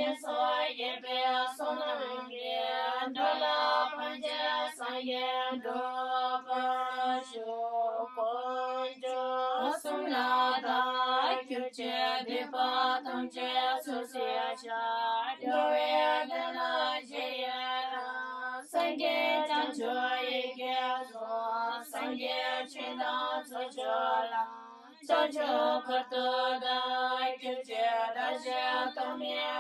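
Background music: a female voice singing a chant-like melody over a steady low drone, in phrases broken by short pauses.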